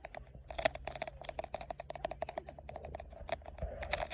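Rapid, irregular clicking and rattling, like small objects being handled and rummaged through, over a low steady hum.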